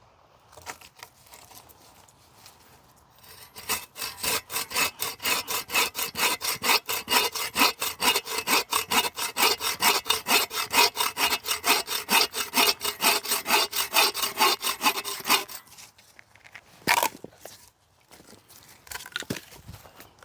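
Hand saw cutting through a piece of firewood with quick, even strokes, about four a second, starting a few seconds in and stopping after about twelve seconds. One sharp knock follows shortly after.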